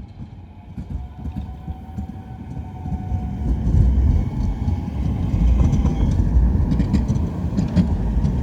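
Spårväg City tram running on its rails: a low wheel-on-rail rumble that grows louder over the first few seconds and stays loud to the end, with faint clicks over it.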